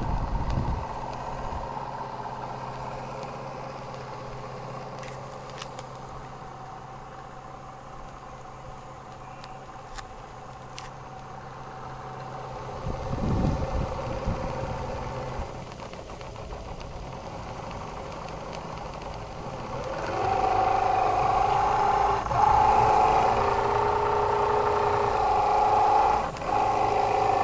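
Martin Balis twin-cylinder model steam engine running steadily under steam, a constant mechanical hum. About twenty seconds in, a louder steady whine comes in and holds, with two brief dips.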